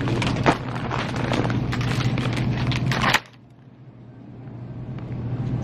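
Clattering and rustling handling noise over a steady low hum. It drops away suddenly about three seconds in, then slowly rises again.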